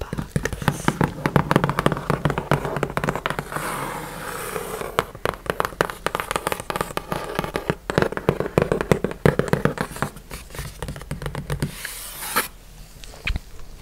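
Long fingernails tapping and scratching quickly on a cardboard box: a dense run of crisp taps that stops near the end.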